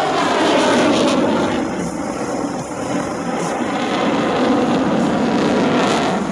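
Loud jet noise from the F-35A Lightning II's single Pratt & Whitney F135 turbofan as the fighter passes close and pulls into its tactical pitch. The noise holds strong throughout.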